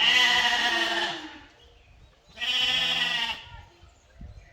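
Sheep bleating: two loud calls, each about a second long, one at the start and another a little past halfway.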